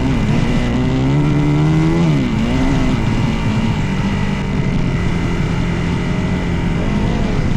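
Dirt bike engine running under throttle: the engine note climbs for about two seconds, drops sharply, then holds fairly steady.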